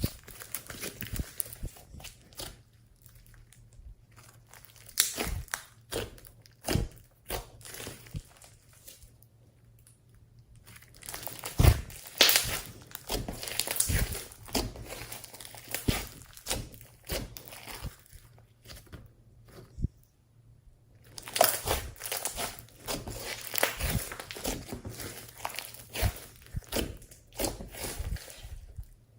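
Slime being squished and worked by hand, making irregular sticky clicks and crackling pops, with denser stretches of crackling near the middle and again later on.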